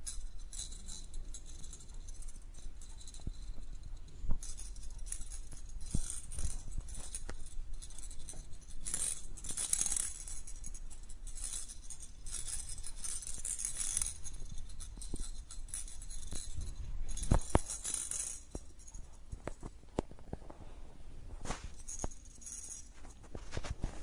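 Plastic toy mouse with a loose ball inside rattling and jingling in irregular bursts as kittens bat, roll and bite it, with scattered clicks and knocks of the toy against the kittens.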